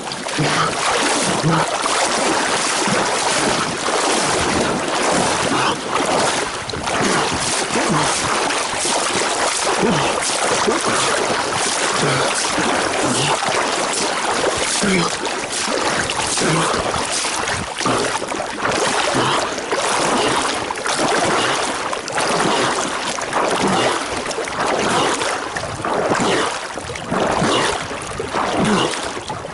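Water splashing and sloshing close to the microphone: a continuous rushing with many small splashes throughout.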